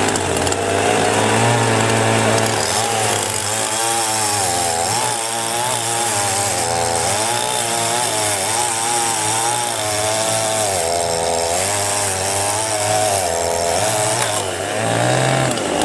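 Huter chainsaw running at high speed while cutting through rotten firewood logs. Its pitch keeps dipping and rising as the chain bites into the wood and frees again.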